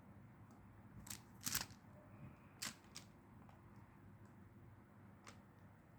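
Plastic magnetic building tiles clicking as they are handled and snapped into place: a few sharp, separate clicks, the loudest about a second and a half in.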